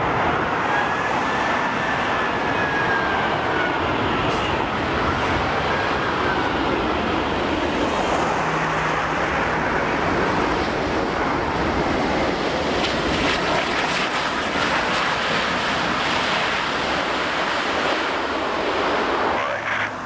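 Airbus A380 jet engines on final approach and landing: a loud, steady rushing noise with a faint whine that slowly falls in pitch over the first few seconds. The sound drops suddenly near the end.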